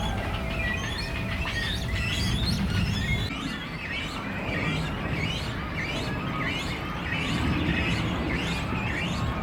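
A flock of small birds chirping, many short overlapping calls at once, over a low steady rumble.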